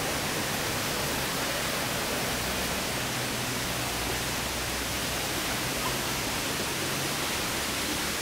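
Steady rush of a waterfall and the rocky creek below it, an even, unbroken hiss.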